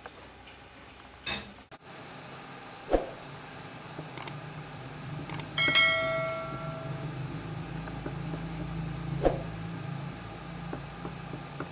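Subscribe-button sound effect: a few mouse clicks, then a single bell ding that rings out for about a second. A steady low hum underlies it, with two dull knocks, one before the ding and one after.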